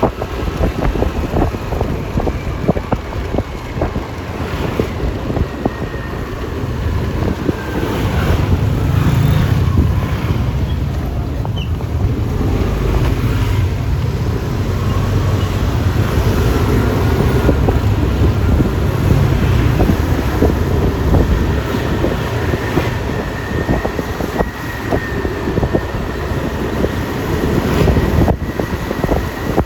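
Riding a Yamaha Lexi LX 155 scooter: wind buffeting the phone microphone over road and traffic noise. The buffeting grows heavier from about eight seconds in and eases off again after about twenty seconds.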